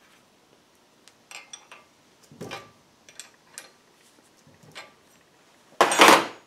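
Steel wrench and nut clinking on an all-thread bolt as a nut is run down, with scattered light metal clicks and one louder metallic clatter near the end.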